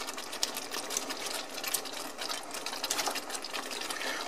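Metal forks clicking and scraping against a pan while shredding soft jackfruit in thick BBQ sauce, with soft wet squelching. Many small irregular clicks over a steady faint hiss.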